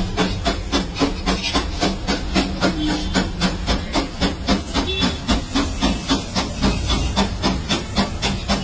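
A metal knife striking an iron griddle (tawa) in quick, even chops, about four strikes a second, as a stuffed paratha is cut up on it. Under the strikes is a steady hiss from the hot griddle.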